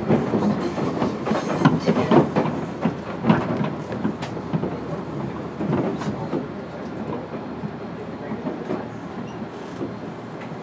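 JR East 205 series electric car MoHa 205-608 running on the line, heard from inside the car: a steady rolling rumble with irregular clacks and knocks from the wheels over the track. It is louder for the first few seconds and eases off after about six seconds.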